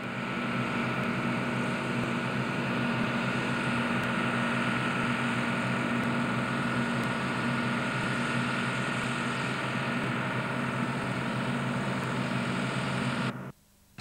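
Deutz-Fahr M35.70 combine harvester running steadily at working speed while harvesting, a level engine drone with machinery noise over it. It cuts off suddenly near the end.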